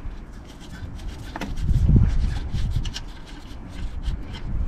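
Faint rubbing and light clicks of a gloved hand working the refrigerant pipe fitting on a car's air-conditioning condenser, over a low rumble that swells about two seconds in.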